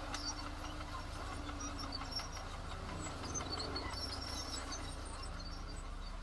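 Diesel engine of heavy earthmoving machinery running steadily as a low rumble, with scattered short high chirps over it.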